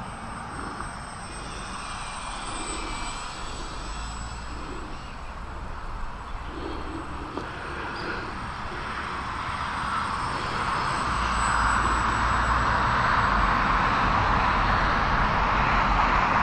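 Micro Draco RC plane's electric motor and propeller droning steadily in flight, growing louder over the second half.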